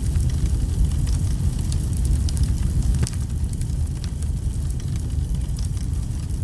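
Wood fire burning: a steady low rumble of flames with scattered sharp crackles and pops from the burning logs.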